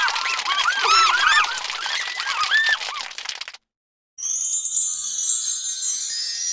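Many overlapping squeaky honking calls that rise and fall in pitch, fading out about three and a half seconds in. After a brief silence, a bright shimmering jingle of chimes begins.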